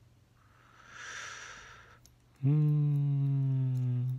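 A man's voice: a breathy sigh, then a long, steady hummed groan lasting nearly two seconds, its pitch falling slightly, with no words in it.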